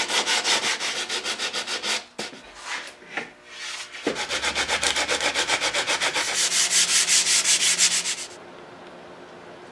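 Coarse 60-grit sandpaper on a hand sanding block scraping across teak in fast back-and-forth strokes, about five a second, roughing in the shape of a glued-in teak repair. The strokes pause about two seconds in, with a few knocks, then resume and stop about eight seconds in.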